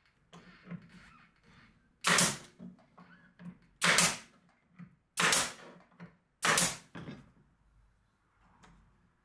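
Pneumatic nailer driving nails into a wooden cabinet side: four sharp shots, each a second or more apart, with quieter knocks of the tool being shifted and pressed against the wood between them.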